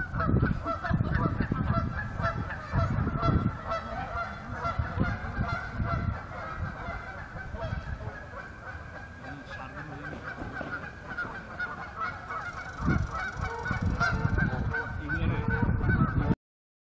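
A flock of Canada geese honking, many calls overlapping with no break, over a low rumble that comes and goes. The sound cuts off suddenly near the end.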